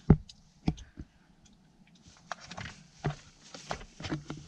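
A macaw shifting about on a car seat, with handling knocks and rustling: two sharp knocks in the first second, then irregular soft clicks and rustles.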